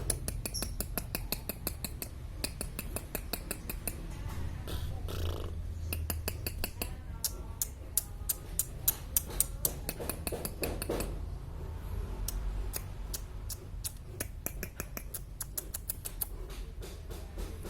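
Lovebird chattering its 'ngekek' song: long runs of rapid, sharp chirps, thinning out briefly now and then, over a steady low hum.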